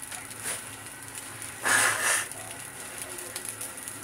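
Round scad (galunggong) reheating in oil in a nonstick frying pan: a steady crackling sizzle, with a short louder hiss about two seconds in.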